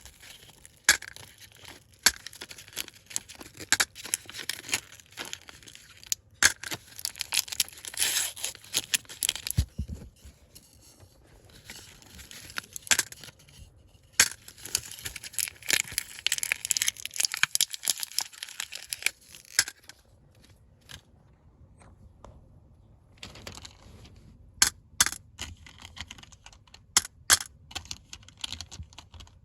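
Plastic candy wrappers being torn open and crinkled, with dense crackling and many sharp snaps and clicks. There is a quieter lull about two-thirds of the way through, after which it comes as separate sharp clicks.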